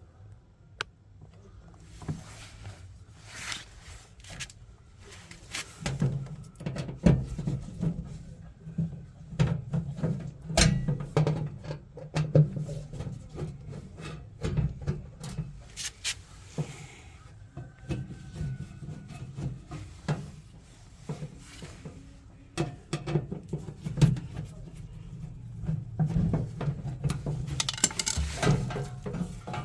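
Clicks, knocks and rubbing from hands working the back lid of a washing machine as it is opened, with a few sharper knocks along the way.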